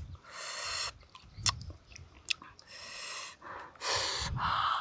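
A man eating spicy barbecued pork: chewing and smacking his lips, with a few sharp mouth clicks and several long, hissing breaths in and out through the mouth from the heat of the chilli sauce.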